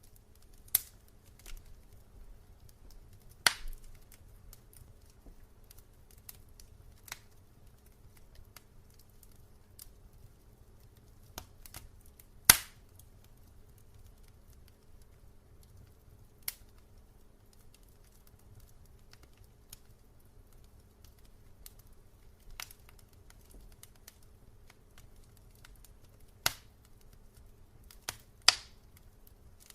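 Fire burning in a fireplace, crackling: sparse sharp pops every few seconds, the loudest about twelve seconds in, over a low steady rumble of the flames.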